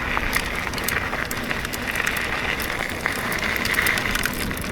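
Mountain bike rolling fast over a gravel track: a steady crunching hiss from the tyres, dotted with many small clicks and rattles.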